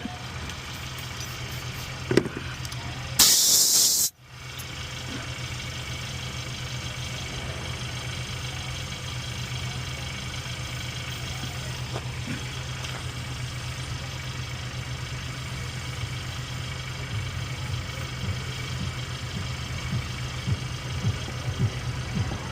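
An engine runs steadily at idle. About three seconds in, a loud hiss of escaping air lasts about a second and cuts off sharply.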